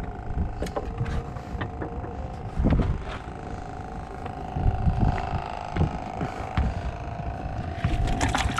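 An engine runs with a steady hum throughout, with low thumps and scattered light clicks over it.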